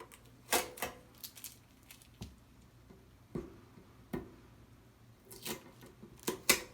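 Packing tape being peeled and ripped off an appliance in a series of short pulls, the loudest near the end.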